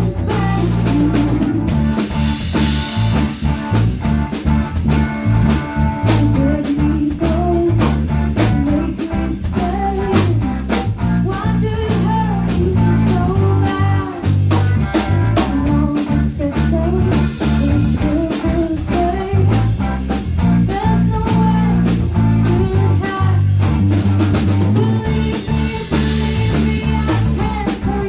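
Live band playing: a guitar line with bending notes over a driving drum kit and a steady low bass line.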